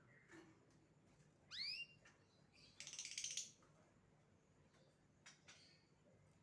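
Asian pied starling (jalak suren) calling: a single rising whistle about a second and a half in, then a short harsh, buzzy rattle, with a few faint clicks later on.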